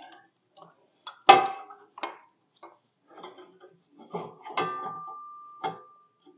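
Steel mounting hardware being handled: a series of metallic clinks and clanks, the loudest a sharp clank about a second in. Later a clank leaves a thin metallic ring that fades out over a second or so.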